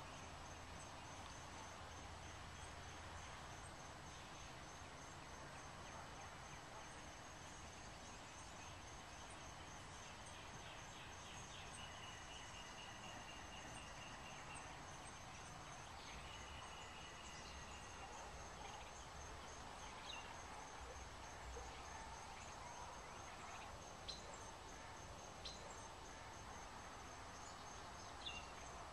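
Quiet outdoor ambience: a steady, high-pitched, evenly pulsing insect trill runs throughout, with a series of higher chirping notes in the middle and a few short, sharp bird chirps in the second half.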